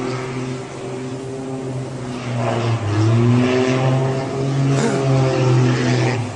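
Aircraft engine droning loudly at a fairly steady pitch, bending slightly up and down as the plane dives. The drone cuts off near the end as the plane hits the water.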